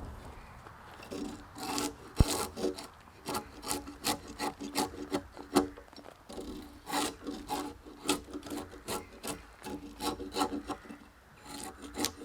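Carving disc on a cordless DeWalt 18V XR angle grinder biting into a log in many short, irregular rasping strokes, several a second, with quieter gaps between them. The disc cuts aggressively and is hard to control.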